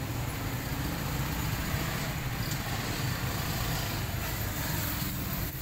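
Steady outdoor background rumble with a hiss above it, unbroken throughout, of the kind made by traffic or wind; no meowing is heard.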